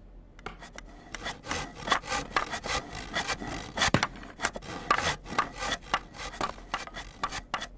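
Dense, irregular crackling and scraping noises, as of a sound effect, starting about half a second in, with a few louder sharp snaps near the middle.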